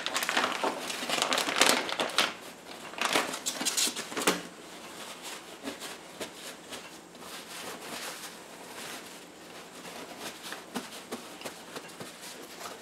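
Crinkling of a plastic vacuum-seal bag as a cheese wheel is pulled out of it, loudest in the first four seconds. This is followed by softer rustling of paper towels being rubbed over the cheese to dry it.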